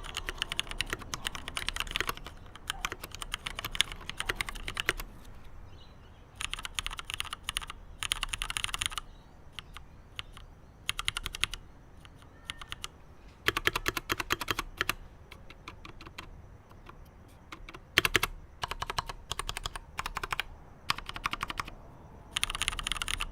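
Typing on a Leopold FC750R PD tenkeyless mechanical keyboard with Cherry MX Black linear switches and PBT doubleshot keycaps: rapid runs of keystrokes in bursts of a second or two, broken by short pauses.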